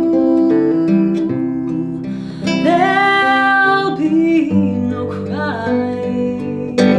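Acoustic guitar playing slow chords under a violin melody, with a long held, wavering note about three seconds in.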